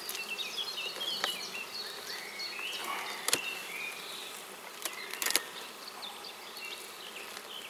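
Honeybees buzzing around an open hive, single bees passing close by with brief rising and falling hums. Four sharp clicks are heard along the way.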